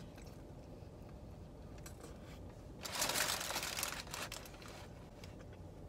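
Quiet eating, then about three seconds in a burst of paper crinkling lasting about a second, like a wrapper or bag being handled.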